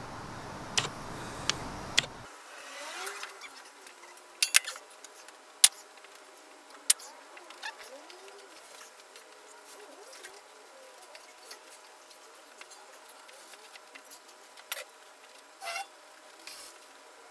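Camera-handling rustle for about two seconds, then a faint background broken by a few scattered sharp clicks and knocks.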